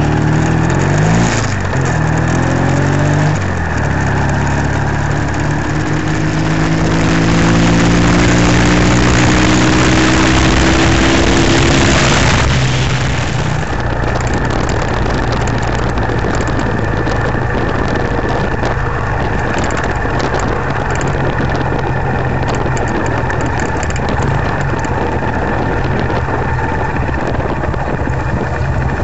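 Classic British motorcycle engine pulling away and accelerating, its note rising through the gears, with wind rushing over the microphone for several seconds about a third of the way in. It then runs on more steadily at lower revs.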